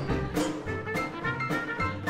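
Small 1920s-style hot-jazz band playing a swing tune: banjo, upright bass, drums and trumpet, with a steady beat of about two strokes a second.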